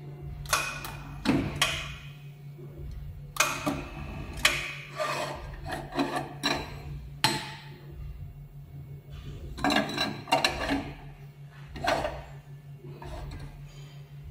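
Metal knocks and clatter of a manual capsule sealing machine's aluminium tray and handle being pulled out and pushed back in, a dozen or so irregular clanks with scraping between them. A steady low hum runs underneath.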